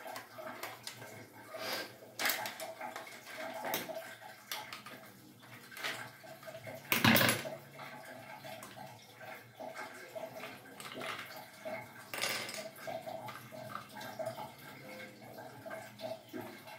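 Clicks, taps and scraping of hard plastic valve parts and a metal screwdriver being handled while a Viega flush-tank float valve is taken apart for cleaning. A louder knock comes about seven seconds in and another about twelve seconds in, over a faint steady hum.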